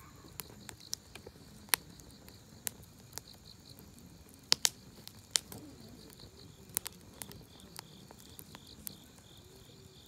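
Wood fire in a round steel fire pit crackling, with sharp pops at irregular intervals, the loudest two close together about four and a half seconds in. Insects chirp steadily in a regular pulsing rhythm behind it.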